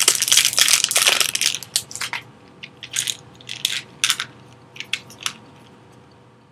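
Small package being wrestled open by hand: dense crinkling and crackling of the wrapping for the first second and a half, then scattered crackles and clicks that die away after about five seconds.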